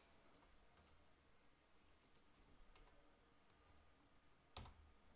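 A few faint clicks of a computer keyboard over near silence, with one sharper click a little past four and a half seconds in.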